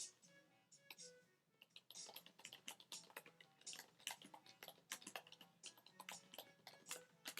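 Typing on a computer keyboard: a quick, irregular run of key clicks, sparse at first and thick from about two seconds in.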